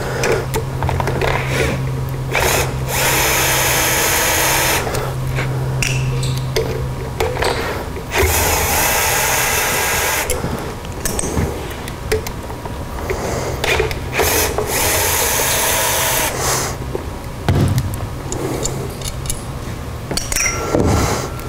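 Cordless drill-driver running in several bursts, backing out the socket cap screws that hold the exhaust housing on a Super 7R floor edger.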